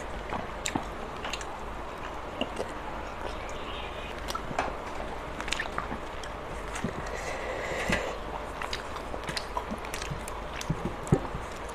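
Eating by hand: chewing and wet mouth sounds, with fingers pulling chicken meat off the bone and small clicks of fingers and bone against a steel plate, the sharpest click near the end.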